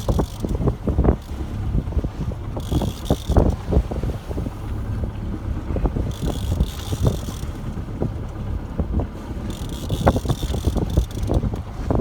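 Wind buffeting the microphone aboard a sailboat under way, a low gusty rumble, with a hiss about every three to four seconds.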